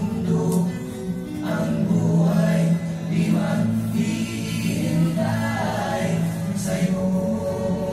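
Music with a choir singing sustained chords.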